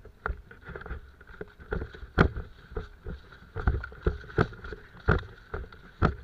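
Footsteps and rustling as someone wades through dense brush, with leaves and branches repeatedly swishing and knocking against the body and the camera. The knocks come irregularly, one or two a second, the sharpest a little after two seconds in.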